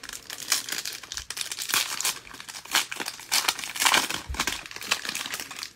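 Foil wrapper of a 2022 Panini Mosaic Baseball card pack being torn open by hand and crinkled as the cards are pulled out: a dense run of crackly rustling.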